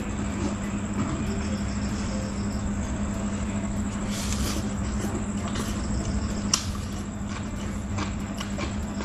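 Noodles being slurped and chewed, with a few wet mouth sounds and one sharp smack, the longest slurp about four seconds in. A steady low hum runs underneath throughout.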